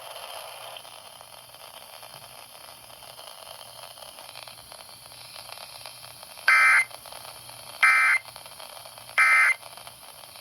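Emergency Alert System end-of-message code: after a few seconds of faint radio hiss, three short, harsh digital data bursts a little over a second apart, the tail that closes the AMBER Alert broadcast.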